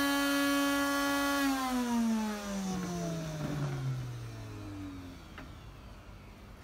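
Novital Davide 4V electric grain mill's motor whining steadily at full speed, then switched off about a second and a half in: its whine falls steadily in pitch and fades as the rotor coasts to a stop.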